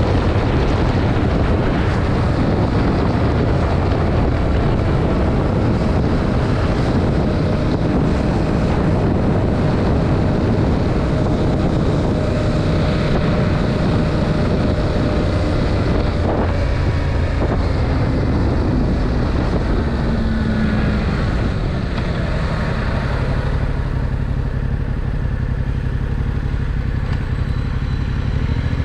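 Yamaha MT-07's 689 cc parallel-twin engine running through its stock exhaust while riding, with wind rushing over the microphone. The wind noise fades over the last few seconds, leaving the engine's low note clearer.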